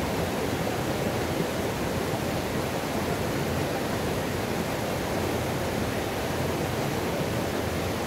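Mountain river water pouring over a small rock cascade into a pool: a steady, unbroken whitewater rush.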